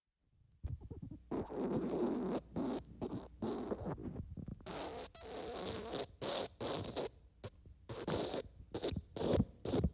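Wet fart sound effect: a long series of spluttering bursts, some short and some drawn out, separated by brief gaps, starting about half a second in.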